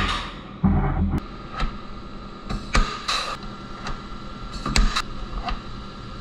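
Pneumatic blind rivet gun setting rivets in an aluminum truck bedside: a few short air-driven pulls, each ending in a sharp snap or hiss, with the loudest about a second in.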